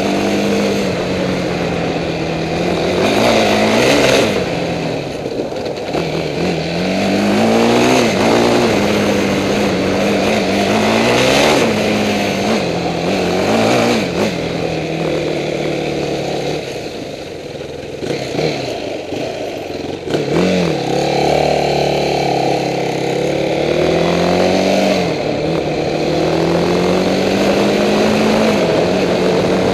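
ATV engine running under constantly changing throttle, its pitch rising and falling over and over as it revs up and eases off. It drops to a lower, quieter note for a few seconds about halfway through before picking up again.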